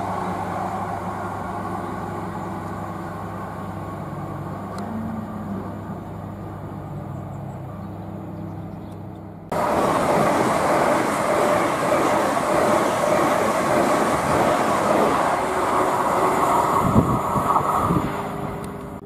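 A GWR Class 387 Electrostar electric train drawing away, its steady motor hum slowly fading. About nine and a half seconds in, the sound cuts suddenly to a GWR Class 800/802 IET passing close, a loud steady rushing noise that dies away near the end.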